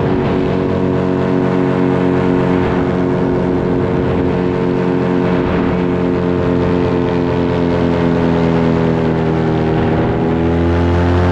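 Paramotor engine and propeller running steadily under power, with wind noise. The engine dips slightly in pitch about ten seconds in, then picks up again as it is throttled up near the end.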